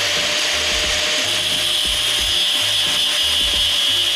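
Angle grinder running at full speed with its abrasive disc grinding the steel edge of an excavator bucket: a steady motor whine under a harsh, high grinding hiss.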